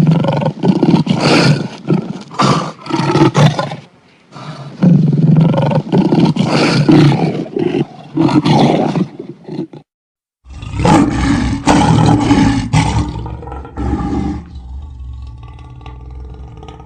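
A big cat roaring, a run of loud repeated roars in stretches that break off abruptly into silence about ten seconds in, then resume, fading to a quieter steady sound near the end.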